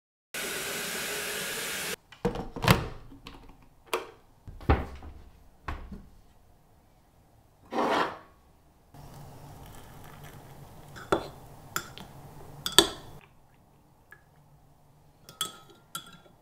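Household handling sounds: a short stretch of steady rushing noise, then scattered sharp knocks and thuds of objects being set down, a brief swelling whoosh, and a few seconds of steady low whirring broken by more knocks.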